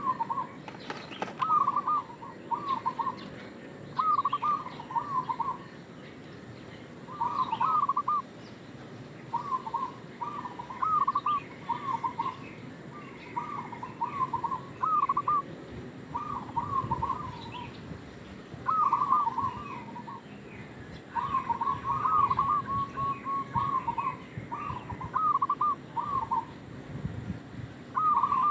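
Zebra dove (perkutut) singing its cooing song: short runs of quick, pitched notes, repeated every second or two.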